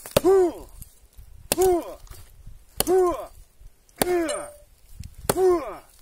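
Hatchet chopping into a rotten log: five blows about 1.3 seconds apart, each a sharp strike followed at once by a short, loud tone that drops in pitch.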